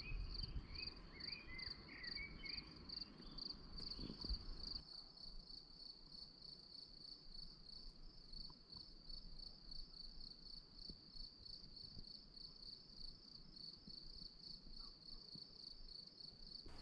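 A cricket chirping steadily and evenly, about three high chirps a second. A few short gliding chirps are heard over it in the first three seconds.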